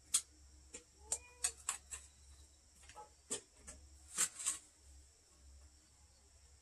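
Metal shovel scraping and knocking as it scoops and tips a wet mortar mix, a string of sharp scrapes and taps. Crickets chirp steadily in the background.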